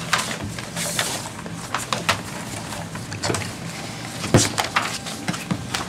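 Sealed bid envelopes and paper sheets being handled and opened at a desk: irregular rustles, clicks and taps, with one louder knock a little past the middle.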